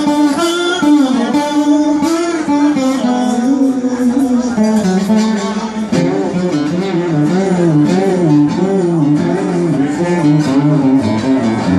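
Steel-string acoustic guitar played bottleneck slide in an improvised blues. The notes glide up and down, and from about halfway through they waver in a repeated figure.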